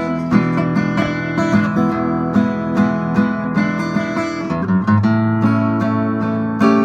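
Outro music: acoustic guitar strumming chords in a steady rhythm.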